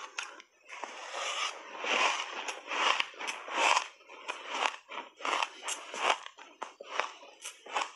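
Close-miked crunching and chewing of a big mouthful of shaved ice coated in matcha and milk powder. The crunches repeat, longer and louder in the first few seconds, then shorter and quicker.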